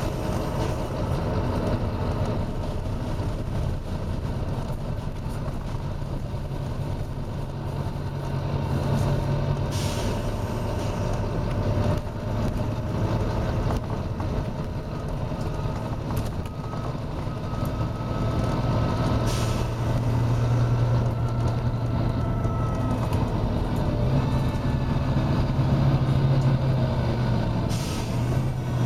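Volvo B9TL double-decker bus's diesel engine running with a steady drone whose pitch shifts now and then, with brief hisses of compressed air from its air system about ten seconds in, again near twenty seconds, and near the end.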